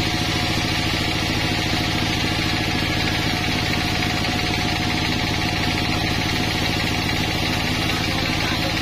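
Band sawmill ripping a pine beam lengthwise: a steady machine drone with a fast, even pulse, under a continuous hiss of the blade cutting through the wood.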